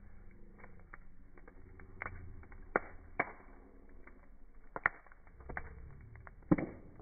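Wood fire of burning logs crackling, with about half a dozen sharp pops at irregular intervals, the loudest near the end.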